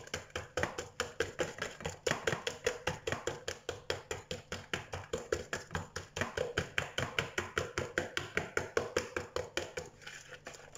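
Hand whisk beating a runny egg mixture in a plastic bowl: quick, even clicking strokes, about five a second, that stop about ten seconds in.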